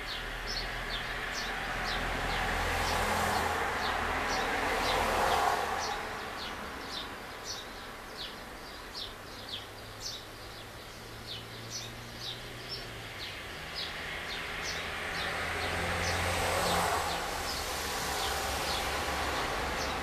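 Birds chirping over and over, short high notes two or three times a second, with road traffic behind. Two vehicles pass on the street, each swelling and fading away, one about five seconds in and another around seventeen seconds in.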